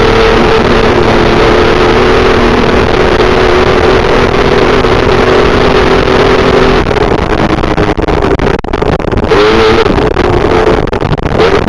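Desert race truck engine running hard at steady high revs over heavy wind and road noise. About seven seconds in the revs waver and briefly dip, then climb again near the end.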